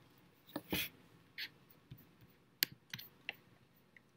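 A few quiet, sparse clicks and taps, about eight in four seconds, irregularly spaced.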